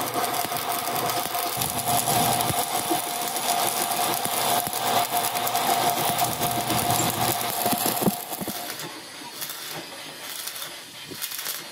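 Stick (arc) welding: the electrode's arc crackles and sizzles steadily alongside a steady high tone, then the arc stops about eight seconds in.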